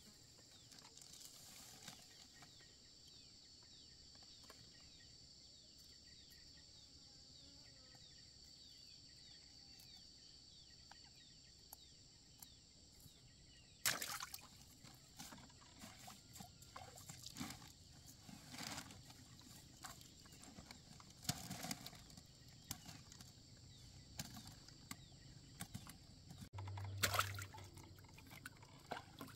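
Faint dripping and trickling of water from a fishing net as it is hauled into a small boat, then from about halfway on irregular knocks and small splashes as fish are taken from the net and flap in the water in the bottom of the boat, over a steady faint hiss.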